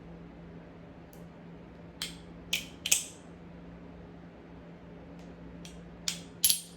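Balisong (butterfly knife) trainer being flipped open and closed, its handles clicking and clacking against each other and around the pivots. The clicks come in two quick runs of about three, a couple of seconds in and again near the end.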